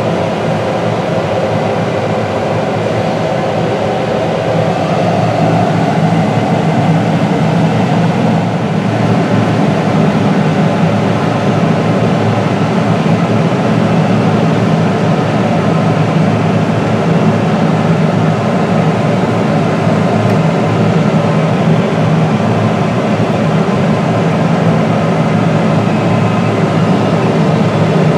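Deutz-Fahr 9340TTV tractor's 340 hp engine running steadily under load while it pushes corn silage with its dozer blade, heard from on board. The drone gets a little louder about six seconds in.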